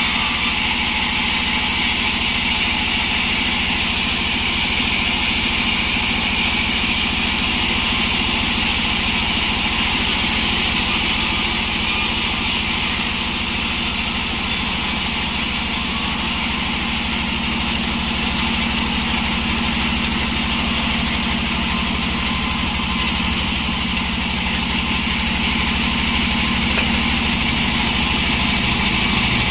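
Sawmill's engine running steadily at an even speed, with only small changes in its low tone.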